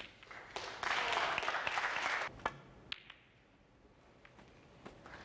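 Brief audience applause lasting about a second and a half, set between sharp clicks of snooker balls: one click right at the start, and two more just after the applause.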